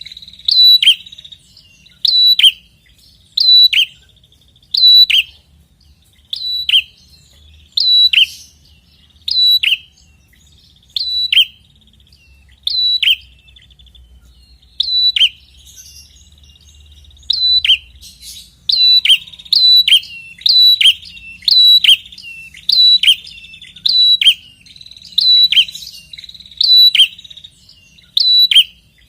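A prenjak kepala merah singing insistently: a loud, sharp call falling in pitch, repeated a little under once a second. A short trill comes midway, and then the calls come faster. This is a lure song of the kind used to set other prenjak calling.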